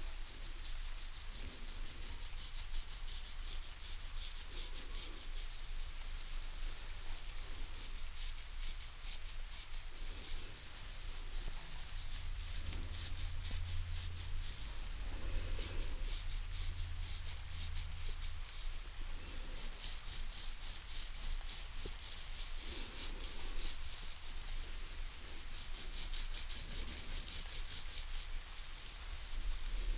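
Fingernails scratching rapidly and continuously close to the microphone, ASMR-style head and back scratching, in long runs of quick strokes with a couple of brief let-ups.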